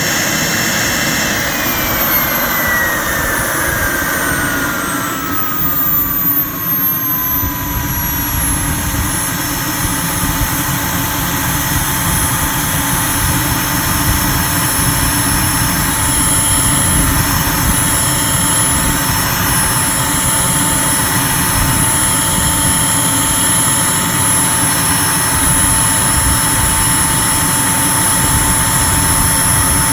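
KingTech K102 model jet turbine running up. Its whine falls in pitch for the first several seconds as it throttles back, then holds steady at idle over a constant rushing of air.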